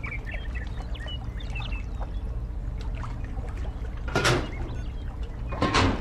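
Two short scraping noises about a second and a half apart, as a small striped plate is handled and set over a toy water channel. Under them runs a steady low hum with faint scattered chirps.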